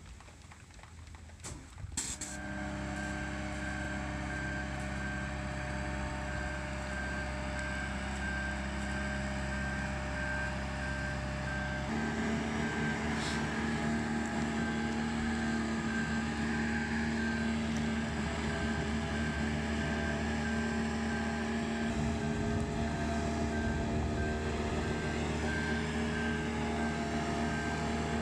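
Marine Travelift boat hoist's engine running as the lift drives along, with its travel alarm giving a steady, evenly repeated beep. The engine note changes about ten seconds after it starts.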